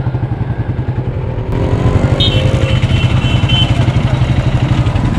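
Motorcycle engine running with a fast low pulse, getting louder about a second and a half in.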